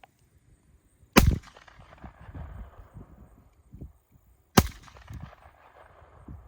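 Two handgun shots, about three and a half seconds apart, each a sharp crack with a short echo after it.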